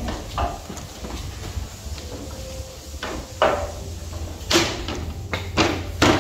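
Irregular knocks and clatters of fiber-cement (Hardie) planks being pushed and tapped into place in a metal gate frame, the plank fitting tightly. The knocks are sparse at first and come louder and closer together in the second half.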